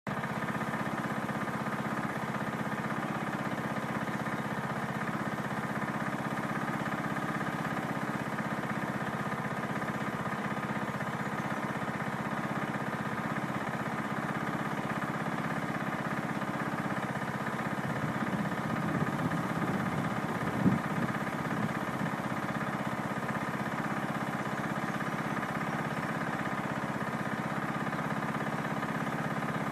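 Steady mechanical drone of an engine or motor running. A few louder irregular knocks come about twenty seconds in.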